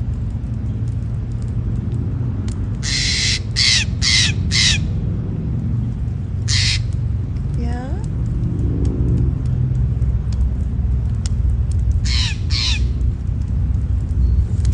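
A crow cawing: a run of four harsh caws about three seconds in, one more a couple of seconds later, and two near the end, over a steady low rumble.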